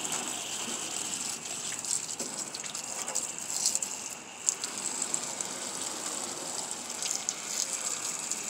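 Water spraying steadily from a hose onto the rusted sheet metal of an old International Harvester tractor, a hiss with small spatters that briefly falters about four seconds in. The water is soaking a rust-seized hood to free it.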